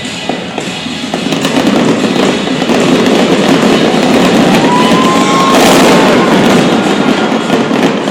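Fireworks bursting and crackling in rapid succession, growing dense and loud from about a second in, with music playing underneath.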